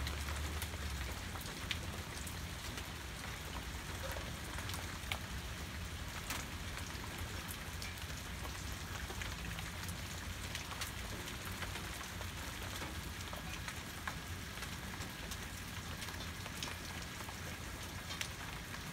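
Steady rain falling, with scattered sharper ticks of individual drops.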